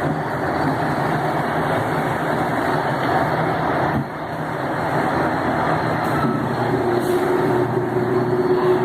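Electric multiple unit TUE 1726 running, a continuous rumble with a low steady hum. A higher steady hum comes in about seven seconds in and grows louder.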